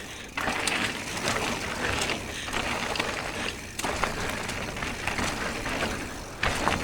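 2025 YT Capra mountain bike riding down a dirt trail: an uneven rush of tyre and air noise over loose dirt, with two short lulls in the middle.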